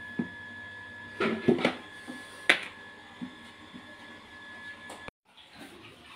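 Metal engine parts knocking and clinking as they are handled on a workbench, over a steady faint whine. The sound cuts off abruptly about five seconds in.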